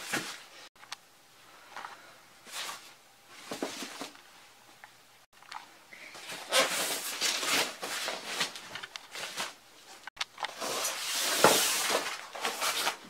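Plastic wrap and a foam sheet rustling and crinkling, with styrofoam packing being handled, as a computer monitor is lifted out of its box and the packing is gone through. Short scattered rustles at first, then longer, louder crinkling in the second half.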